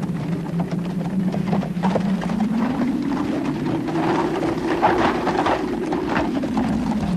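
Many horses' hooves clip-clopping as a mounted troop moves along, with a low steady hum underneath that rises in pitch about halfway through and falls back near the end.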